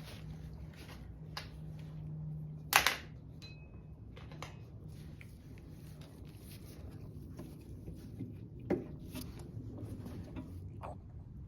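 Light handling noise of small lawnmower parts: a few scattered clicks and taps, the sharpest about three seconds in and another near nine seconds.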